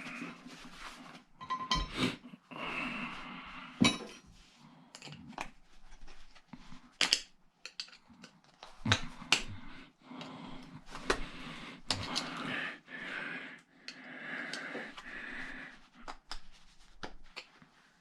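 Metal parts and hand tools knocking, clinking and scraping at irregular moments as small steel pieces are worked out of cast aluminium parts.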